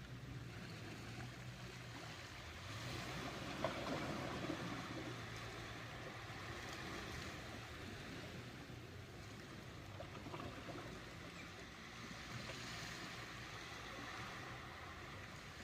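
Ocean waves washing in, a steady rush of water that swells louder about three seconds in and again near the end.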